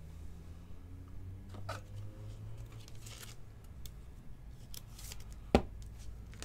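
A trading card sliding into a rigid plastic top loader, with soft plastic rustles and scrapes, then one sharp click near the end as the loaded card is set down.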